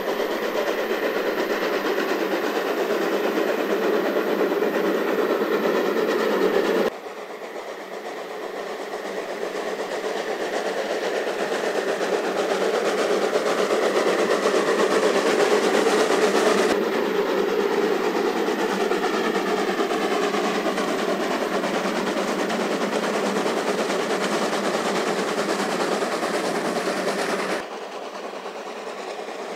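Narrow-gauge BR 99 steam train running: a steady rail and running noise from the train. The sound drops abruptly about seven seconds in and again near the end, where the shot changes.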